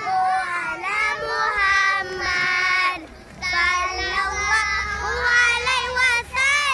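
A group of young children singing together in unison, their voices dropping away briefly about three seconds in.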